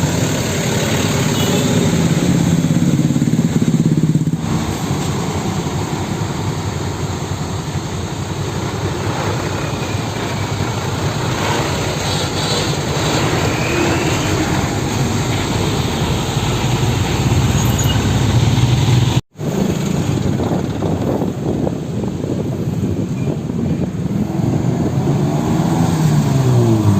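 Road traffic dominated by heavy truck engines running, with engine pitch rising and falling near the start and again near the end as vehicles pass or change speed. The sound cuts out for an instant about 19 seconds in.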